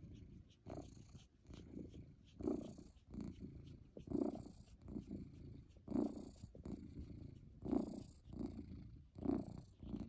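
A 17-year-old domestic cat purring close up, a low rumble that swells in a steady in-and-out rhythm, with a stronger pulse about every one and a half to two seconds.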